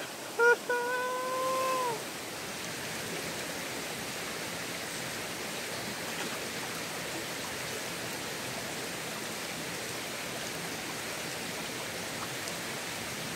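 Shallow forest stream running over rocks, a steady rush of water. In the first two seconds a person's voice calls out: a short note, then one held note that falls away at the end.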